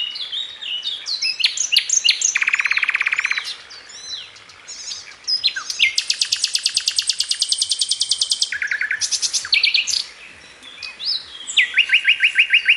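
A single songbird singing a long, varied song: quick chirps and slurred whistles broken by several rapid trills, a long fast one in the middle and another near the end.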